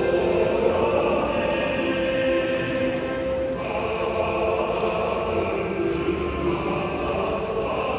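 A school song sung by a choir with accompaniment, played over the stadium loudspeakers for the post-game school-song ceremony.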